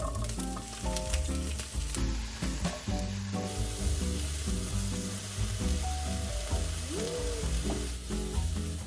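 Food sizzling steadily in a hot pan, with background music playing over it.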